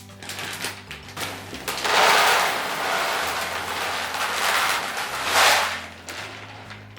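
Handheld shower spraying water while rinsing out a cat litter box: a loud rushing hiss starts about two seconds in, swells again briefly and cuts off near the end, with scattered patters and knocks around it.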